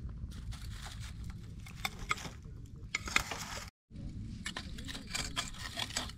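Lumps of charcoal clinking, knocking and scraping as metal tongs set them into a small steel fire stand: a run of light, irregular clicks over a low steady rumble, with a brief dropout just past halfway.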